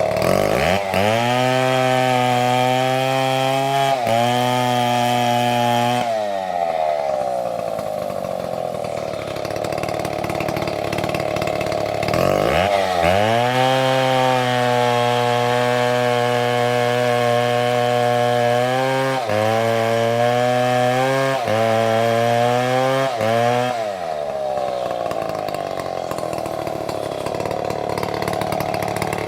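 Big two-stroke chainsaw revved up to high speed and held there for about five seconds, dropping back to idle, then revved up again and held for about eleven seconds with a few brief dips before settling back to idle.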